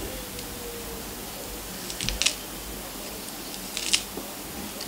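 Kitchen knife slicing through a spring onion held in the hand: two short clusters of crisp cutting clicks, about two seconds in and again near four seconds.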